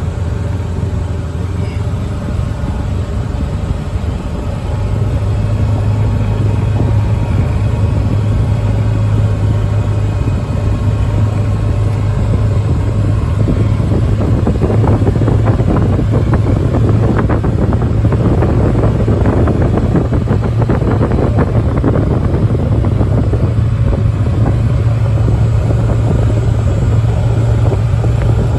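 A small vehicle's engine running steadily while driving, a constant low hum that grows slightly louder about five seconds in. From about the middle for some nine seconds, a rough crackling noise rises over it.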